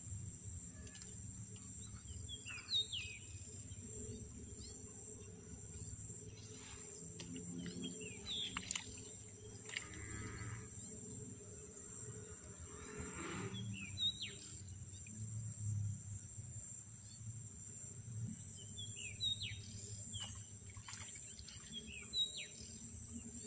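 Birds chirping in short, quick downward notes every few seconds, over a steady high-pitched insect drone.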